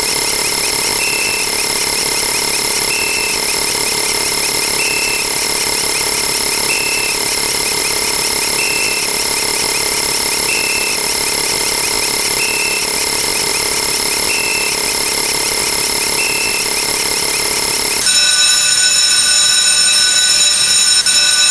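A dense wall of layered electronic sound effects made of several steady sustained tones, with a short higher beep repeating about every two seconds. About eighteen seconds in, the mix switches abruptly to a different, slightly louder set of steady tones.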